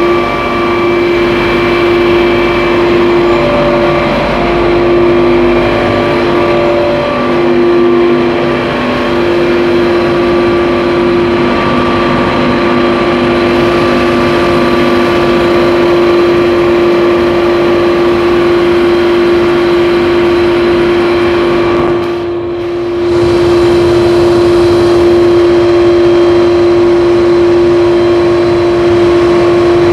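Hertz HSCFRECON 60 rotary screw air compressor with a 60 kW inverter-driven motor running steadily: a loud hum with a strong constant tone and fainter steady tones above it. The sound dips briefly about 22 seconds in.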